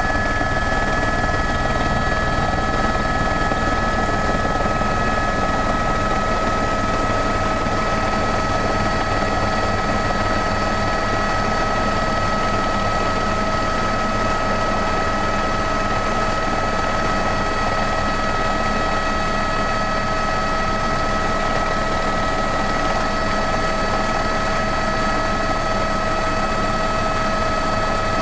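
Helicopter heard from on board, running steadily: a constant low engine and rotor drone under a steady high turbine whine made of several unchanging tones.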